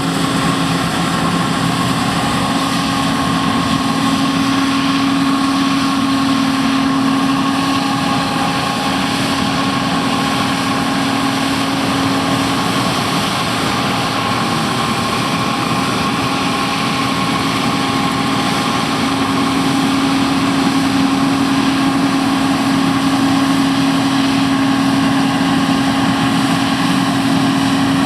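A combine harvester running steadily, its diesel engine and threshing machinery giving an even drone with a constant hum and a fainter higher whine.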